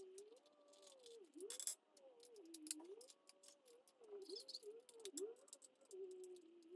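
Faint small clicks and taps of AA batteries being fitted into the plastic battery compartment in the back of a Funko Talking Turbo Man action figure, with a faint tone that wavers in pitch underneath.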